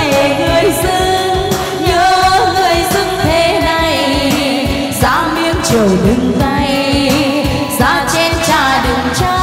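Women singing a Vietnamese folk-style song into microphones over backing music with a steady beat.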